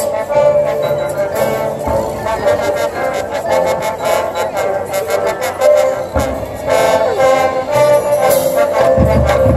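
High school marching band playing: brass section sounding chords over its drumline, with low bass-drum hits a few times.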